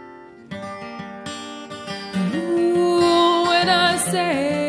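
Two acoustic guitars strummed, with a woman's voice coming in about two seconds in on one long held note that wavers and then slides down near the end.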